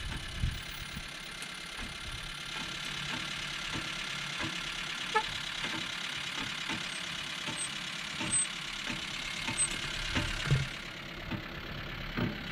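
A vehicle engine idling steadily, with scattered short knocks and clicks over it.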